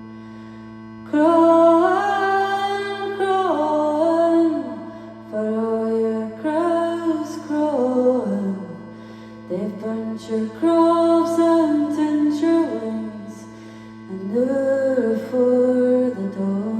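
A woman singing a slow Scottish folk melody in four long phrases over a steady low drone that holds through the gaps between them.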